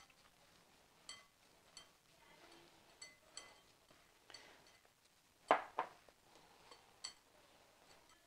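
Hand kneading ragi flour dough in a glass mixing bowl: faint rubbing with several light clinks against the glass, and two louder knocks in quick succession a little past halfway.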